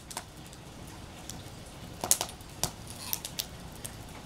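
Wood fire crackling in a screened fire pit, with a few sharp pops about two seconds in and a cluster more a second later.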